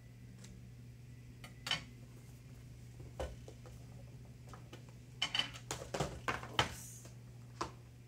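Cardboard phone boxes and paper inserts being handled: short rustles, taps and light knocks as boxes and lids are set down on a glass-topped table, a few scattered at first, then a quick run of them about five to seven seconds in, over a steady low hum.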